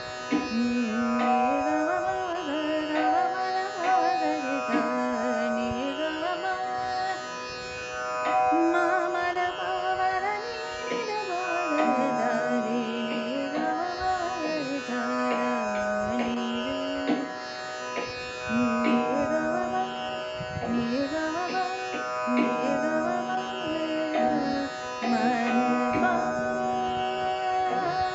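Hindustani classical singing: a woman's voice sings a slow vilambit khayal in Raag Yaman, drawing long notes and sliding between them, over a steady drone.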